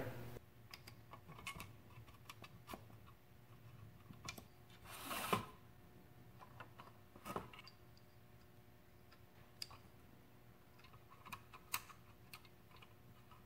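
Faint, scattered clicks and ticks of a hex key and small 4-40 socket head cap screws as a plastic computer fan is screwed onto a radiator's thin metal housing, with a brief louder rustle of handling about five seconds in.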